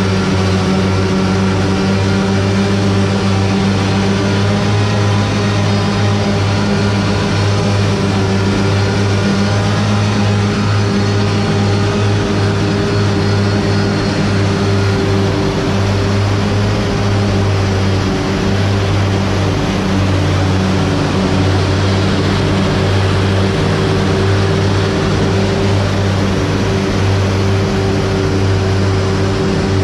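A machine running steadily and loudly, with a deep even hum and a higher steady tone over a wash of noise.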